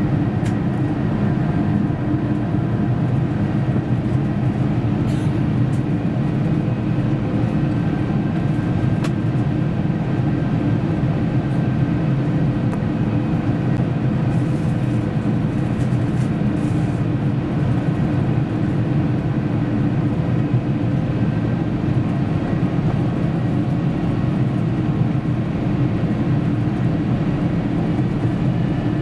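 Cabin noise of an Airbus A350 descending on approach: a steady low drone of its Rolls-Royce Trent XWB engines at approach power mixed with the rush of air past the fuselage, with a few faint ticks.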